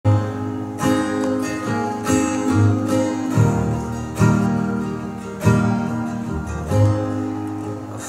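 Acoustic guitar playing a slow instrumental intro, a chord struck about every second and left to ring, with an upright double bass underneath.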